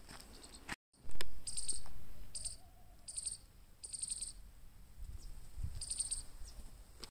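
Insects chirping in short, high, pulsing trills, about five of them a second or so apart, over a low rumble that is loudest shortly after a break just under a second in. Faint footsteps on a dirt path come before the break.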